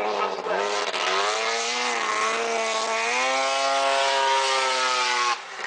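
Race snowmobile engine running hard on the track. Its note climbs about a second and a half in, dips, climbs again around three seconds, holds high and steady, then cuts off abruptly.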